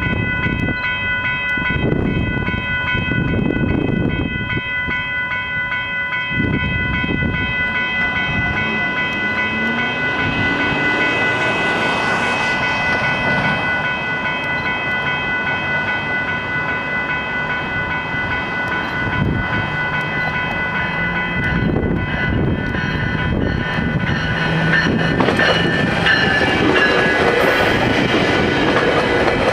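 Level-crossing warning bell ringing steadily while a GO Transit commuter train approaches and passes, its rumble and wheel clatter growing louder toward the end.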